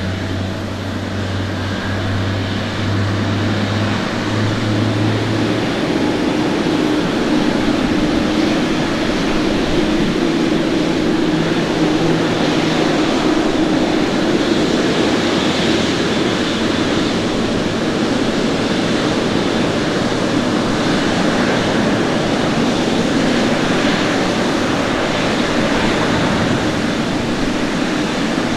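Jet engines at takeoff thrust: a Boeing 737 accelerating down the runway and rotating for liftoff, a steady, loud roar that grows louder over the first several seconds. A low hum stops about five seconds in.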